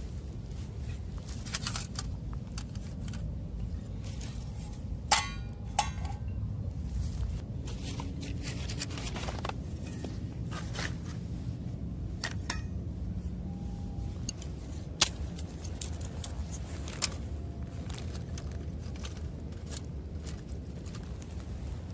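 Light metallic clinks, knocks and scrapes of small metal camp gear being handled, scattered and irregular, with a few louder knocks. A steady low rumble runs underneath.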